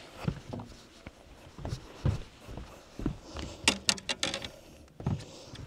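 Handling noise: scattered soft knocks and thumps, with a quick run of sharp clicks about halfway through.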